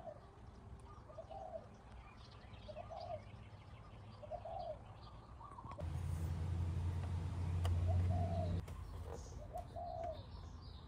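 A dove cooing over and over, one coo about every second and a half, with small birds chirping faintly. About six seconds in, a louder low steady hum joins for nearly three seconds and cuts off suddenly, and a few light clicks follow.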